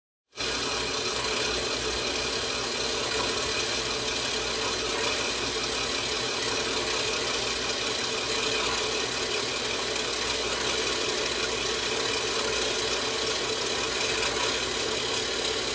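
WEN 4x6 horizontal metal-cutting bandsaw running steadily, its blade cutting through metal stock clamped in the vise under flood coolant. The sound starts suddenly just after the start and holds even throughout.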